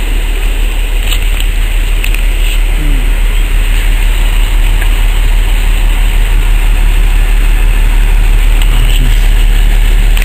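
Diesel locomotive approaching, its engine running with a steady low drone that grows slowly louder as it nears.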